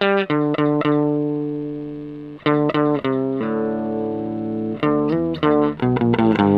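Electric guitar played through an Electro-Harmonix Micro POG polyphonic octave pedal, with its sub-octave blended under the dry signal. Picked single notes and held notes ring and fade, and a new run of notes starts about two and a half seconds in.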